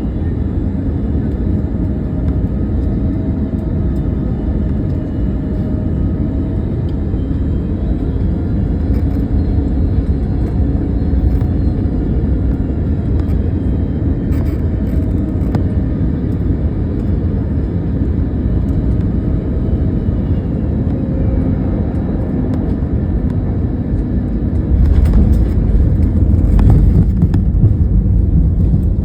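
Airliner cabin noise during landing: a steady low rumble of engines and airframe with faint whining tones, growing louder about 25 seconds in.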